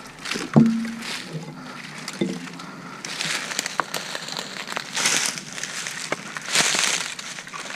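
Dry brush crackling and rustling under someone's footsteps and body as they scramble up a steep, overgrown hillside, with a couple of short grunts early on and louder rustling bursts in the second half.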